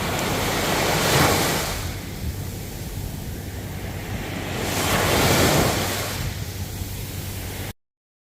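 Ocean waves washing in, two surges about four seconds apart over a steady low rumble of wind on the microphone. The sound cuts off suddenly to silence near the end.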